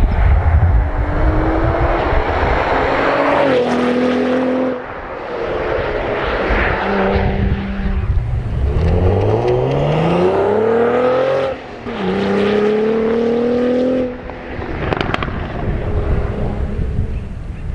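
Cadillac CT4-V Blackwing's 3.6-litre twin-turbo V6 accelerating hard. Its pitch climbs in long rising sweeps and falls sharply at each upshift, about twice, with short lulls when the throttle comes off.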